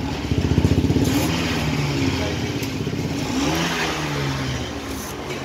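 Royal Enfield Classic 350's single-cylinder engine running and being revved, loudest in the first second, with another rise and fall in pitch about three and a half seconds in.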